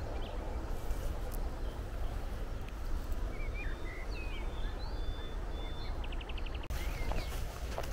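Wind buffeting the microphone in a steady low rumble. Over it come a few short bird chirps and calls in the middle, and a quick rapid trill a little before the end.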